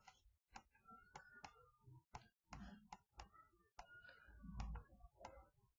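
Near silence with about a dozen faint, irregular short clicks, as of a computer input device while a word is handwritten onto an on-screen slide.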